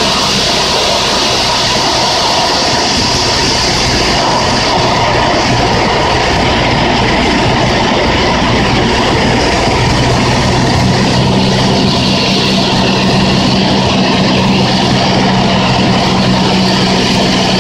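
Cessna 172 in cruise heard from inside the cabin: the steady drone of the piston engine and propeller over loud rushing airflow. A second low tone joins the drone about eleven seconds in.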